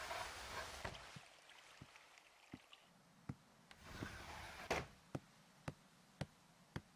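Faint footsteps on a wooden floor: soft, sharp taps, scattered at first, then a steady walk of about two steps a second in the second half, with a brief soft rustle at the start and another around the middle.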